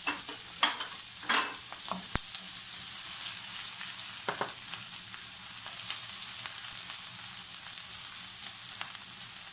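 Diced red onion and garlic sizzling in hot olive oil in a nonstick frying pan, a steady hiss. A few short knocks come in the first half as the pan is shaken on the gas burner.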